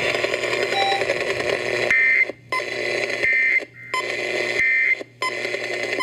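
Emergency alert weather radio speaker hissing with broadcast static, then sounding three short buzzy data bursts about 1.3 seconds apart. These are the EAS end-of-message code closing the warning broadcast.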